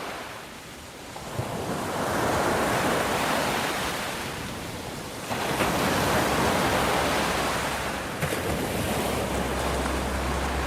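Ocean surf: waves breaking and washing in, the rush of water swelling and easing in long surges. Near the end a low steady hum of tones comes in under the surf.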